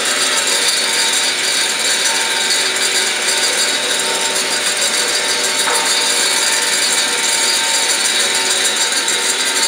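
Powermatic 141 14-inch vertical bandsaw running steadily while a block of wood is fed through its blade. There is one sharp tick a little past halfway.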